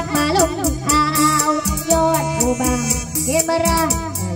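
A girl singing a Thai song into a microphone, holding and bending long notes. She sings over a backing track with a steady beat and bass, all amplified through a loudspeaker.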